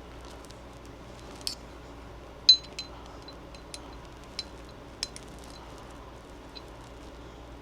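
Small metal clinks and ticks, a handful spread out, the loudest about two and a half seconds in: a Torx driver and screws being worked on a pistol slide while the RMR optic's mounting screws are taken out.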